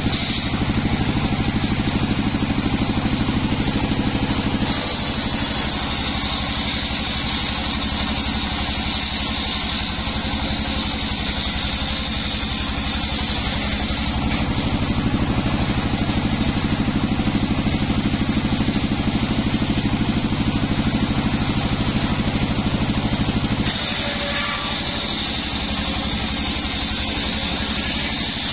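Engine-driven bench circular saw ripping teak boards lengthwise. The engine runs steadily throughout, and the higher sound of the blade cutting through the wood comes in for two long cuts, from about five seconds in to about fourteen, and again from about twenty-four seconds to the end.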